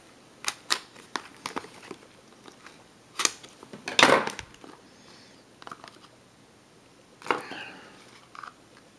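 Trading cards and their packaging being handled and shuffled by hand: a run of light clicks and taps, then louder rustles about three and four seconds in and again about seven seconds in.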